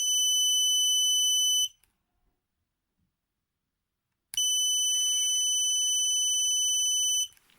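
Flight controller beeping: a steady, high-pitched tone of about two seconds, then after a couple of seconds of silence a second one of about three seconds. It beeps constantly whenever it has power, the fault with this board.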